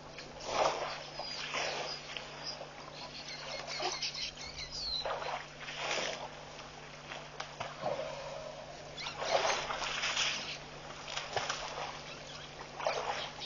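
An African elephant drinking at a waterhole: water splashing and sloshing in short bursts every few seconds as its trunk dips into the pond and spills water.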